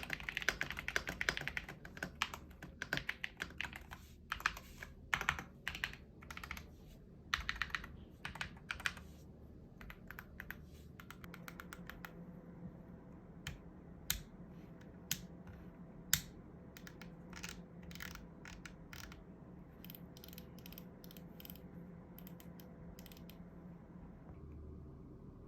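Typing on a NuPhy Field75 HE keyboard with magnetic Hall-effect white switches: fast, dense keystrokes for about the first eleven seconds, then slower, scattered single key presses over a faint steady hum.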